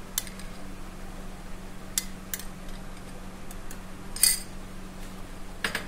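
Metal spoon clinking against glass bowls a few times as rose syrup is spooned from one bowl into another, the loudest clink about four seconds in. A steady low hum runs underneath.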